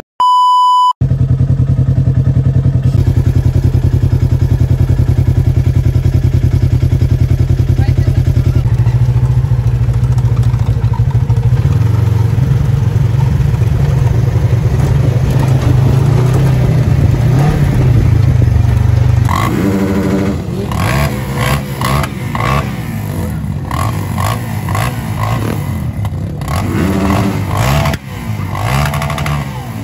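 A steady test-tone beep for about a second, then a Polaris RZR side-by-side's engine running steadily under way. A little past halfway it turns uneven, with revving that rises and falls.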